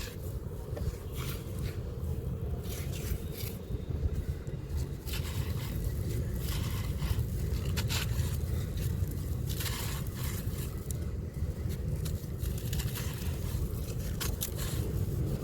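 A crispy, crunchy yellow block being crumbled and crushed into dusty chunks, giving irregular crunching, crackling and scraping strokes. A steady low rumble runs underneath.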